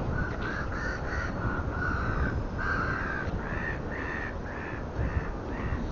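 A bird calling: a quick run of short, harsh calls of the same pitch, about three a second, with two held longer, in a rough rhythm.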